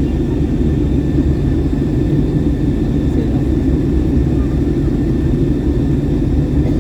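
Airbus A321neo cabin noise in flight: a steady, deep rush of airflow and engine sound with faint constant high tones above it.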